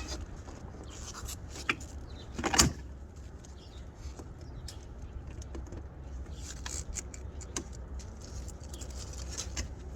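Scattered light metallic clicks and rattles of hand tools working at a radiator hose clamp, with one louder clank and scrape about two and a half seconds in, over a steady low hum.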